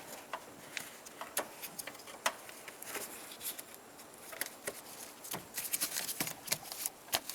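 Scattered light clicks and rustles of the door's insulation sheet being handled and pressed back into place on the inner door, getting busier in the last couple of seconds.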